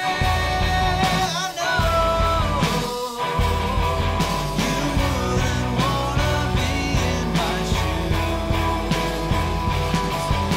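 Rock music.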